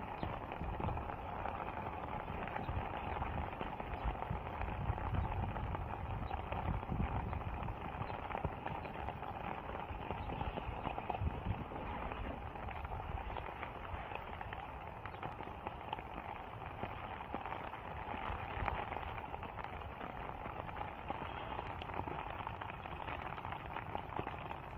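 Steady rain falling with a dense patter of drops, mixed with footsteps of someone walking through the garden mulch.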